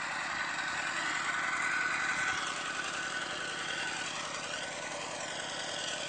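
Two-wheel walking tractor's single-cylinder diesel engine running steadily in the distance as it levels the flooded paddy mud.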